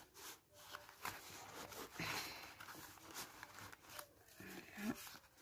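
Faint rustling and sliding of paper and card as a strip of stamps and postcards is handled and slipped into a paper pocket, with a few soft scrapes and taps.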